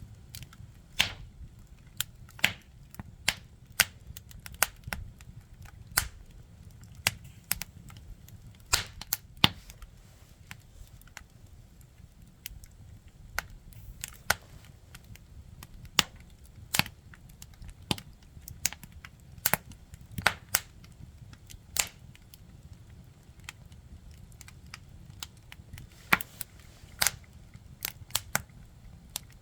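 Firewood burning, crackling with sharp irregular pops, sometimes several in quick succession and sometimes a few seconds apart, over a faint low rumble.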